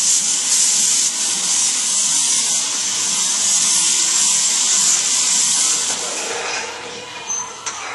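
Compressed air hissing steadily from an air hose at a large tractor tire, the tire being inflated. The high hiss drops away about six seconds in.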